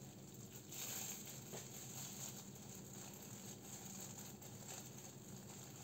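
Quiet handling sounds: thin plastic food-prep gloves crinkling as an avocado is sliced with a knife.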